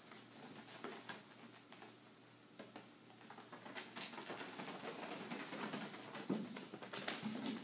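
Kittens scampering and pouncing on plastic sheeting: light patters, rustles and claw ticks, busier in the second half, with a couple of louder bumps near the end.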